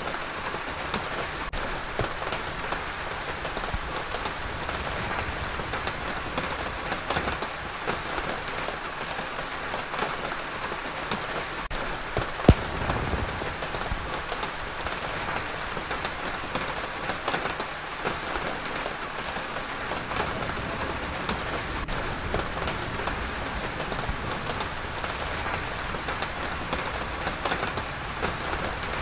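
Steady rain falling, an even hiss dotted with many small drop taps, with one sharp tap about twelve seconds in.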